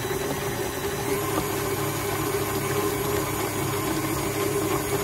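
KitchenAid Artisan stand mixer running at a steady speed, its flat beater working thick choux pastry dough in the stainless steel bowl.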